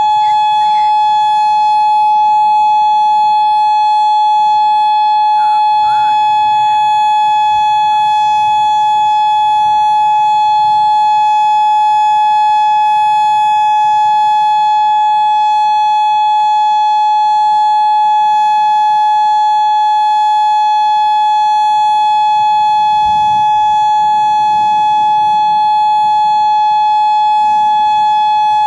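Tornado warning siren sounding one loud, steady, unwavering tone with no rise or fall in pitch.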